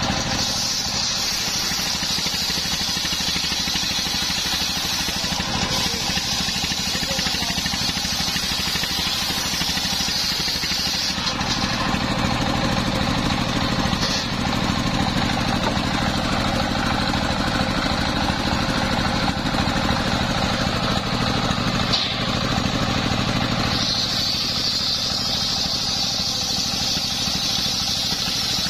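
Stationary diesel engine running steadily, driving a large circular saw blade by belt as it rips coconut palm (glugu) wood. The high hiss of the blade cutting stops about eleven seconds in, while the engine runs on, and comes back for the last few seconds.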